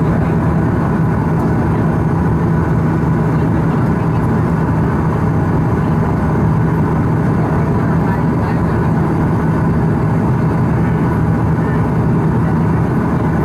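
Cabin noise of a Bombardier Q400 turboprop with its landing gear down on final approach: the steady drone of its Pratt & Whitney PW150A engines and propellers, with a strong constant low hum running through it.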